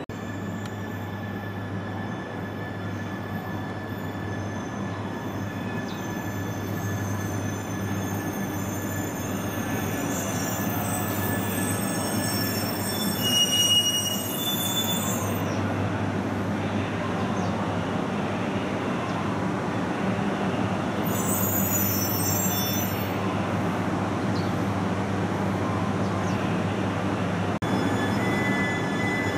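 An E3-series Shinkansen train pulling into the platform, its running rumble growing steadily louder as it slows. High wheel-and-brake squeals come in about a third of the way through and again around two-thirds in.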